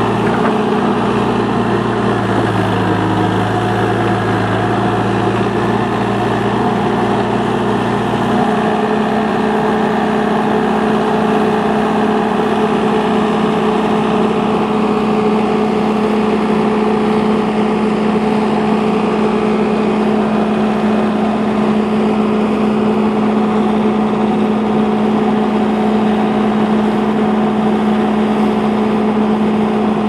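Case backhoe loader's diesel engine running steadily while it digs and swings a bucket of gravel; the engine note changes about eight seconds in, its lower tone dropping away.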